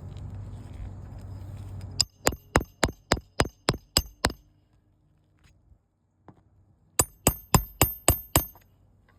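Two quick runs of sharp metallic taps, each with a high ringing. Nine come about four a second, then after a pause of a few seconds seven more come slightly faster.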